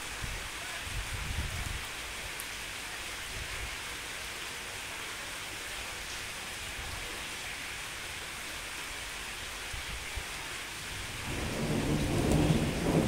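Steady rain hissing down on a wet pier through a thunderstorm. There are brief low rumbles of thunder near the start, and a louder rolling rumble of thunder builds about eleven seconds in.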